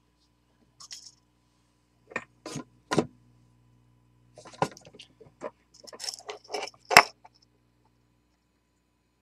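Clicks and light rattles of hands handling a plastic spool of pretinned solid bus wire and pulling wire from it on a workbench. The sounds come in short separate knocks, loudest about seven seconds in.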